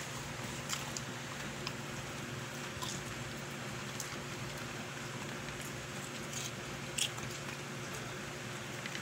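A dog chewing crunchy pieces of pechay (Chinese cabbage) stem: a few faint, scattered crunches, the plainest about seven seconds in, over a steady low hum.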